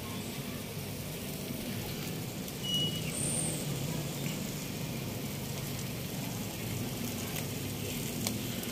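Salmon fillets sizzling steadily on the wire grate of a charcoal grill, with a single light tick near the end.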